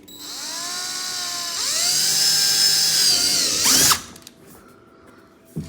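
High-speed handheld rotary power tool spinning up with a rising whine, stepping up to a higher speed about a second and a half in and running steadily. It is switched off about four seconds in, its whine falling away, and a short knock follows near the end.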